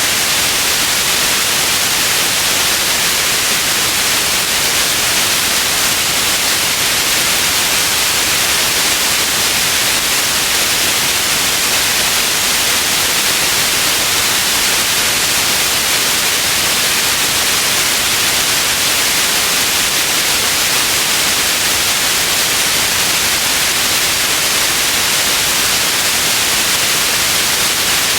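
Steady white noise: an even, unbroken hiss, brightest in the upper range, with no change in level.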